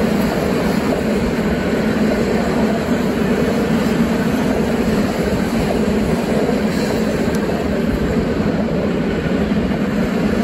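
Freight train passing, its wagons' wheels running on the rails in a loud, steady, unbroken noise.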